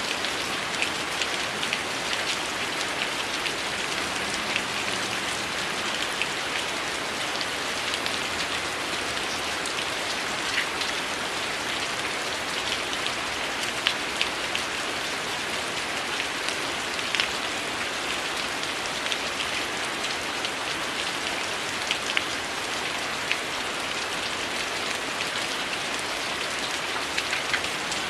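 Steady heavy rain falling, with scattered sharp crackles and pops from a wood fire in a fireplace.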